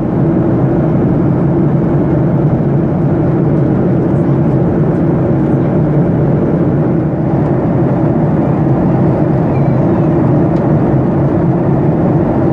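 Steady jet engine and airflow noise inside the cabin of a Boeing 737-800 in flight, heard from a window seat beside its CFM56-7B turbofan engine.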